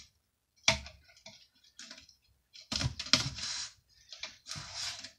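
A small shelf being handled and worked at on a tabletop: a sharp knock under a second in, then several short bursts of scraping from about halfway on.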